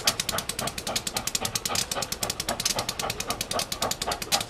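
Steam locomotive working at speed, its exhaust beating out rapid, evenly spaced chuffs.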